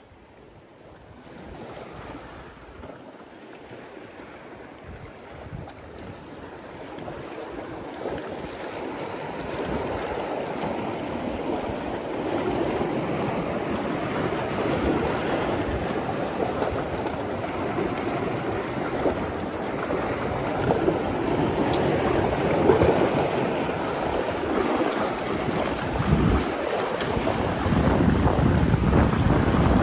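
Sea surf washing in, with wind buffeting the microphone: a steady rushing noise that builds over the first ten seconds or so and grows louder again near the end.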